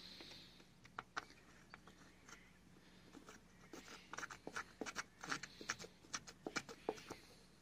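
Faint, irregular clicks and scratching of a threaded steel stud being turned by hand into a metal mounting hole in a car's roof rail, busier in the second half.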